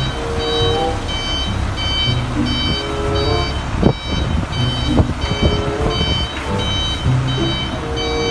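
Truck reversing alarm beeping about twice a second over the truck's engine running, with two sharp knocks in the middle.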